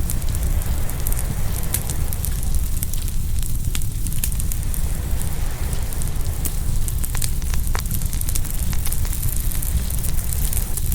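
Open wood fire crackling and popping, with many sharp snaps scattered throughout, over a steady low rumble of ocean waves.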